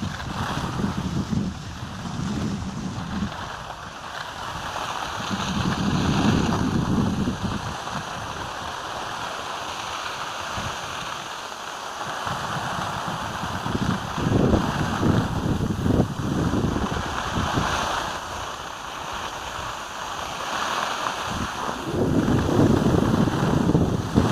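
Wind rushing over the microphone and skis sliding on groomed snow during a downhill run, a steady noise that swells and fades several times.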